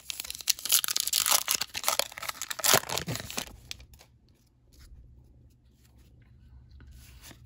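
A baseball card pack's crimped wrapper being torn open and crinkled by hand, a dense crackling rip that lasts about three and a half seconds, followed by faint rustling as the cards are handled.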